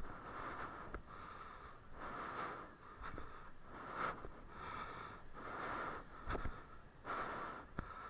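A person's heavy breathing close to the microphone, a rushing in and out about once a second, while clambering over concrete breakwater blocks. A few short knocks of steps on the concrete come in between.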